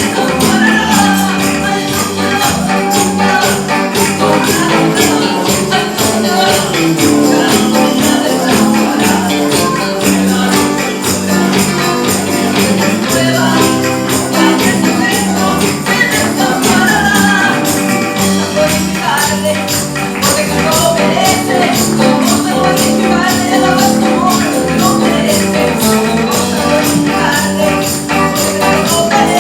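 Christian worship music with a steady beat and a wandering melody line.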